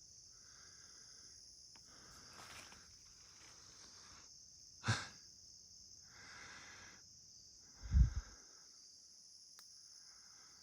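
Steady high-pitched chorus of crickets or other insects, with a person breathing as he walks over rough ground. A sharp knock comes about five seconds in and a louder low thump near eight seconds.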